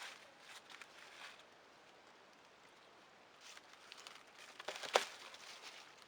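Scattered rustling, crunching steps on the forest floor, with a quiet pause in the middle and one sharper crunch about five seconds in.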